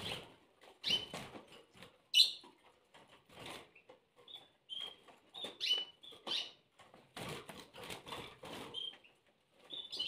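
Canaries fluttering against the wire of a small cage among the rustle of a plastic bag held over the cage door, with several short chirps.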